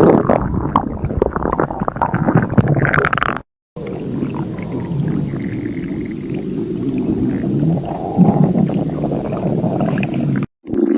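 A person's stomach growling and gurgling, in pieces cut together. A loud, crackly stretch of gurgles is followed by a brief silent cut about three and a half seconds in, then a steadier low rumble with gurgles, and another short cut near the end.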